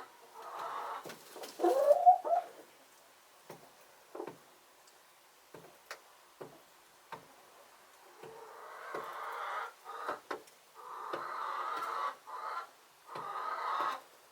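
Hens making drawn-out soft calls in several stretches, with a louder call that rises in pitch about two seconds in. Short clicks are scattered through it.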